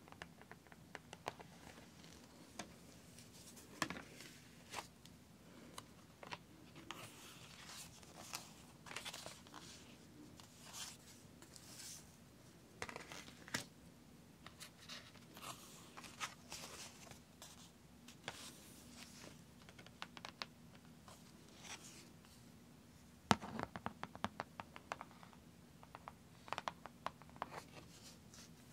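Paper backing sheets being peeled and crinkled off sticky sand-art boards: soft, irregular crackling and tearing rustles, with a louder run of crackles a little before the end.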